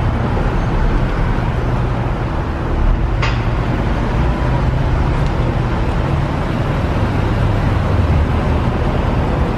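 Mercedes C63 AMG's V8 engine running steadily at low revs, a deep, even rumble. A short sharp click comes about three seconds in.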